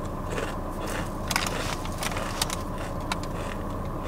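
Steady low hum inside a parked car, with a few short clicks and rustles from someone eating and handling food.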